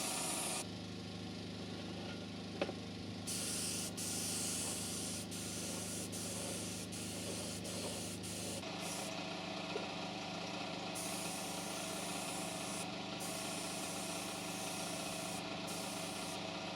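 Compressed air hissing in repeated on-off bursts from an air gun, over a steady motor hum.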